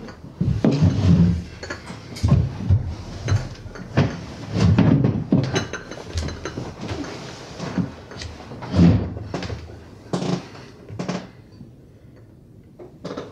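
Irregular knocks, bangs and clatters of objects being knocked about in a small room, with a few heavier thumps, thinning out near the end.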